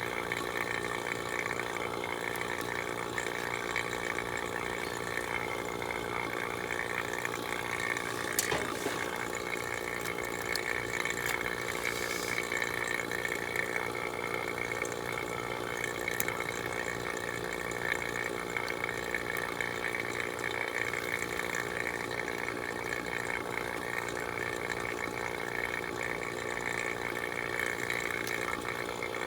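Refrigeration vacuum pump running steadily, pulling a vacuum on the new heat pump's lines to remove moisture, a constant pitched drone. A single click about eight and a half seconds in.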